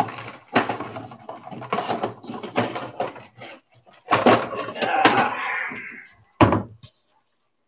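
Kitchenware being handled off to one side, with clattering and knocks: a sharp knock at the start and another about six and a half seconds in.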